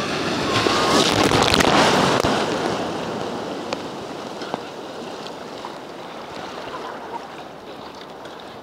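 A sea wave breaking right at the microphone and rushing past, loudest about one to two seconds in, then easing to a steady wash of surf.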